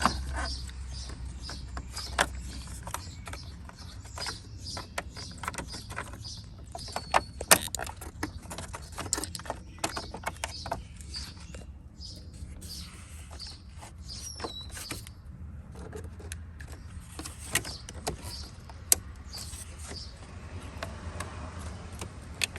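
Scattered clicks and light plastic rattles as a 1983 Pontiac Firebird's headlight switch is handled and pushed back into its dash mounting, snapping into its side clips.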